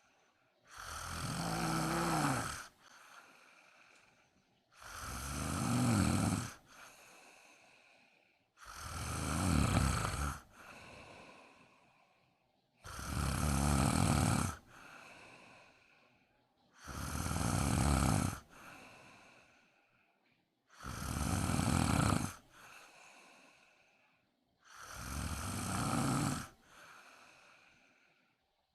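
A woman snoring in her sleep. There are seven loud snores on the in-breath, about one every four seconds in a steady rhythm, each followed by a softer breath out.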